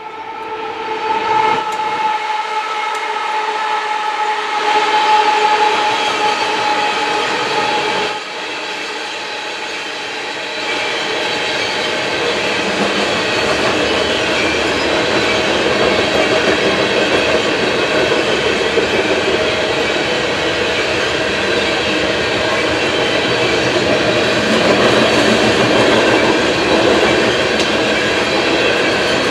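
A Union Pacific coal train approaching and crossing an overhead bridge: the horn sounds one long blast of several seconds, cutting off about eight seconds in, then the locomotives and coal hopper cars roll past steadily with wheels clacking on the rails.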